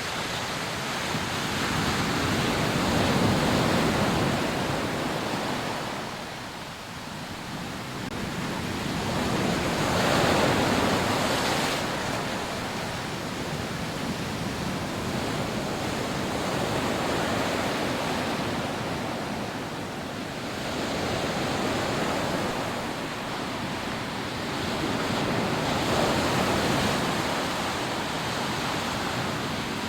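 Rough sea surf breaking on a sandy beach, a continuous rush of water that swells with each wave every few seconds, with some wind.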